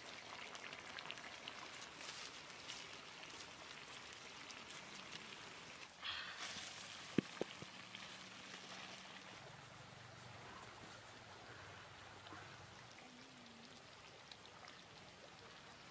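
Fish curry simmering in a wok over a fire: faint, steady bubbling with many small pops. A brief louder rush comes about six seconds in, followed by two sharp clicks.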